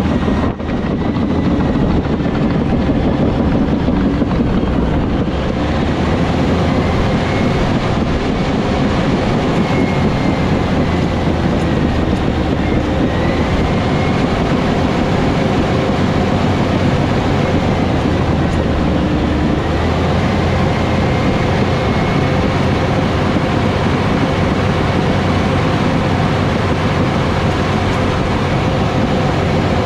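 Cat D7 crawler dozer running steadily at work: a dense, constant diesel engine and machine drone, with a faint high whine that wavers slightly in pitch.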